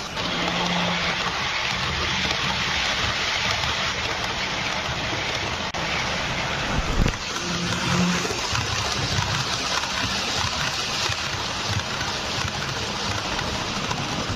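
H0-scale model train running along the track close by: a steady rumble of wheels on the rails with a low motor hum, and one sharp clack about seven seconds in.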